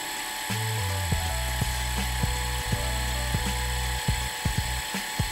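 Bench milling machine running a face mill across the top of a brass block to flatten it: a steady high hiss with one held tone. Background music with a bass line and a regular beat plays underneath.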